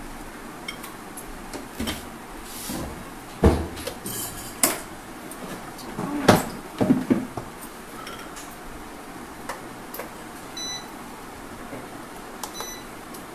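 Small glass bowls being moved and set down on a steel plate: a few scattered clinks and knocks, the loudest about three and a half seconds and six seconds in, with a short run of them just after.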